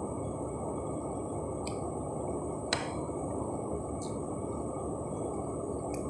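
Steady low room hum, with a few light clinks of a metal spoon and fork against a plate while eating rice, the sharpest about three seconds in.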